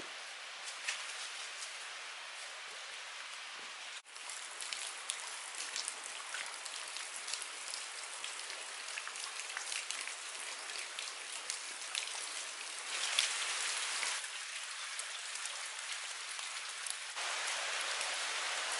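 Water dripping from icicles and wet rock ledges: many small scattered drops over a steady hiss of running water, which grows louder near the end.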